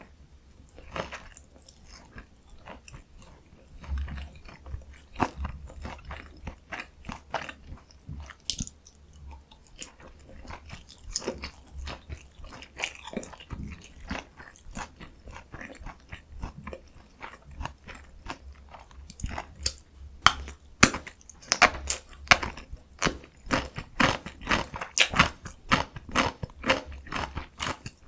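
Close-miked chewing and biting of Korean dumplings (kimchi and meat mandu): wet mouth sounds with many quick clicks. The bites grow louder and crunchier about two-thirds of the way through.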